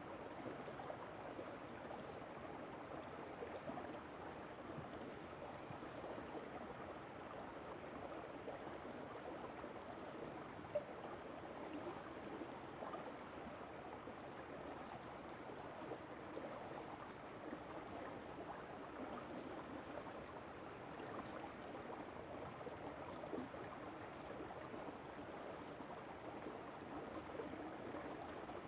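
River running: a steady rush and babble of flowing water, with a single short click about ten seconds in.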